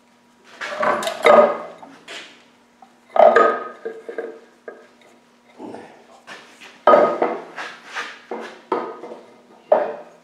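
Metal parts and tools being handled on an engine: irregular clinks and clanks, several sharp knocks with a short metallic ring.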